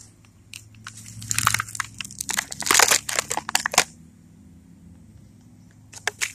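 Clear plastic blister packaging crinkling and crackling as a toy figure is pulled free of it: a run of sharp crackles lasting about three seconds, then quiet, then two brief crackles near the end.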